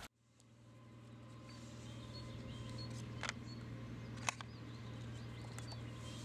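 Outdoor ambience fading in: a steady low hum with faint, short bird chirps. Around the middle come two light clicks about a second apart as plastic paint bottles are handled in their cardboard box.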